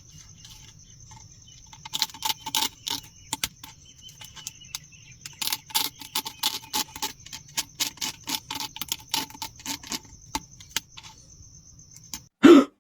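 A needle tapping and scraping on dalgona honeycomb candy: a long run of small, quick clicks and ticks, with a faint steady high whine underneath. A louder brief sound near the end.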